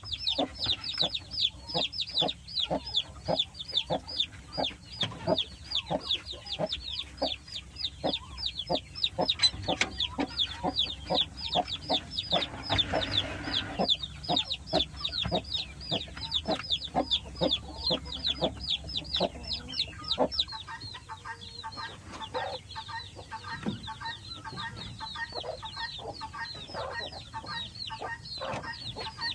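Chickens calling continuously: a dense stream of short, high, falling calls, several a second, over lower clucking.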